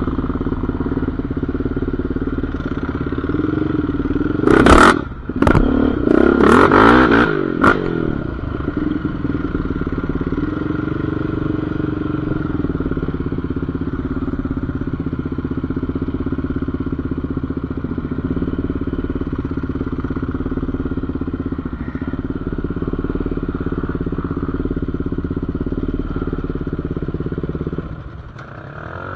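Off-road vehicle engine running steadily under way on a dirt trail. About five seconds in it revs up and down for a few seconds, with several sharp clattering knocks.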